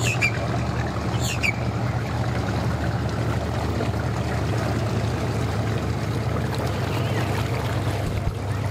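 Bass boat's outboard motor running steadily at idle as the boat moves slowly away.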